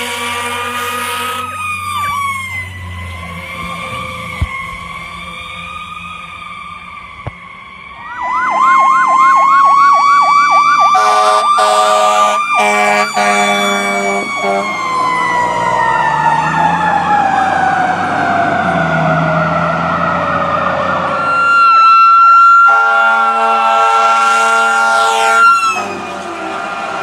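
Fire engine sirens and air horns: a wavering wail, then a louder fast yelp, several air horn blasts, a long siren tone winding down in pitch, and a long air horn blast over a steady siren tone near the end.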